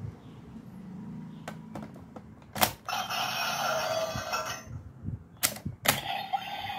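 Kamen Rider Gaim Sengoku Driver toy belt: sharp plastic clicks as its parts and buttons are worked, with a loud electronic sound effect from its small speaker in the middle and a steady electronic tone starting near the end.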